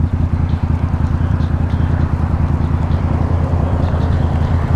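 Motorcycle engine running steadily while riding, a fast even low pulse, with wind and rain rushing over the microphone.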